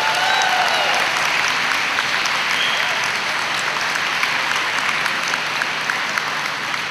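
Audience applauding, with a few cheers rising above the clapping in the first second or so; the applause eases slightly toward the end.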